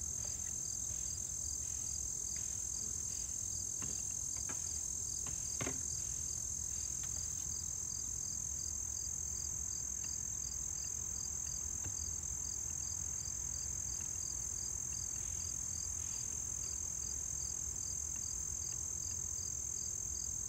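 A steady high-pitched chorus of singing insects, crickets, with a regular chirp about twice a second, over a low steady rumble. A few light knocks in the first six seconds come from the wooden hive boxes being handled.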